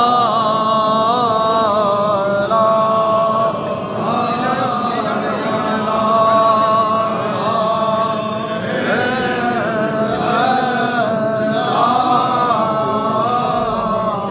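A crowd of men chanting together in unison: a religious chant in long held notes that rise and fall in phrases.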